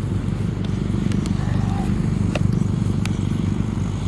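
A steady low engine drone, unbroken, with a few faint clicks over it.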